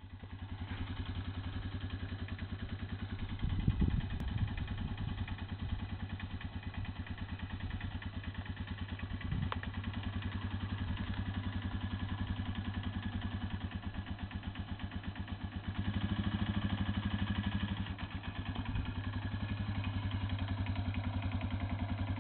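Motorcycle engine idling with a steady, even pulse. About sixteen seconds in it briefly runs louder for a couple of seconds. A few clattering knocks come about four seconds in.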